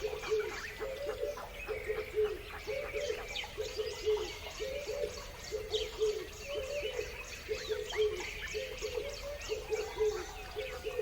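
Several birds calling together: a low call repeats steadily about every half second, with higher chirps and short rising and falling twitters over it.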